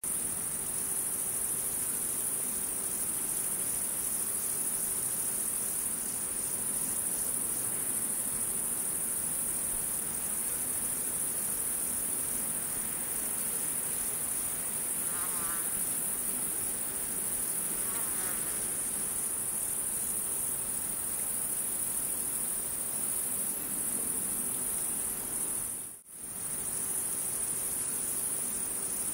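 Steady, high-pitched chirring of insects, dropping out for a moment near the end.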